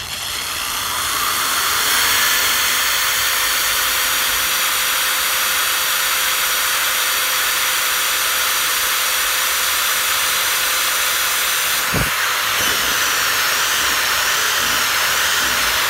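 Power drill spinning up and running steadily while boring through a wooden board, with a high motor whine. A single knock about twelve seconds in.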